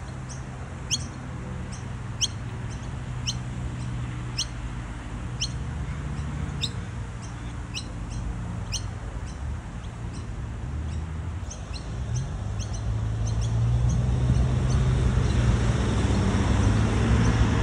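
A bird chirping: short, high chirps falling in pitch, about one a second, then quicker, shorter chirps a few seconds later. Under them runs a low, steady rumble that grows louder near the end.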